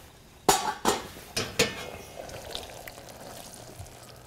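Metal pots and utensils clinking and knocking as a small saucepan is handled at the stove: a few sharp knocks in the first two seconds, then a faint steady noise.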